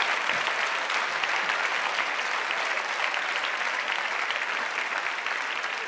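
Large theatre audience applauding: dense, steady clapping that eases off slightly near the end.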